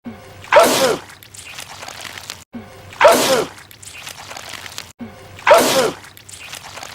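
A man sneezing loudly, the identical sneeze repeated three times about two and a half seconds apart, each one short, with a pitched cry that dips and rises over a noisy spray.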